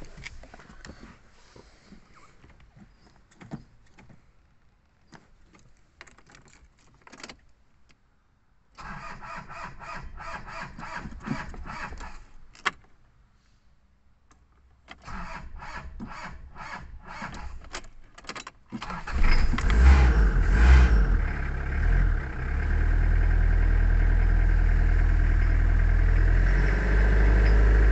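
Toyota Hilux engine being cold-started on a flat battery: two bursts of rhythmic starter cranking of about four seconds each, and the engine nearly fails to fire. Near the end of the second attempt it catches, runs loud and uneven for a few seconds, then settles into a steady idle. Faint clicks and key jangling come before the cranking.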